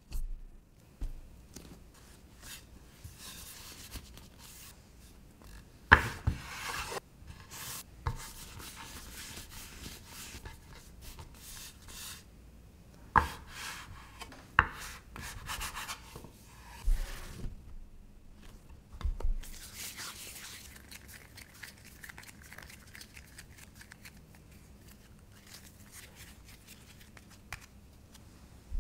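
Hands working soft yeast dough: a few sharp knocks as a metal bench scraper cuts it on a wooden board, between stretches of soft rubbing and rustling as the dough is pressed and rolled into balls.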